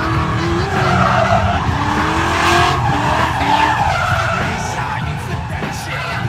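Ford Mustang's engine running hard on a race track, its pitch rising and falling with the throttle, with tires squealing through the corners.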